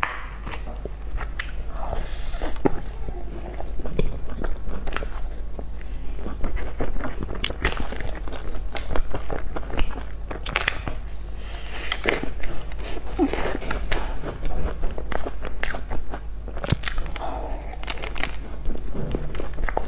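Close-miked biting and chewing of cream puffs with a crunchy crumb topping: many small crunches and clicks, over a steady low hum.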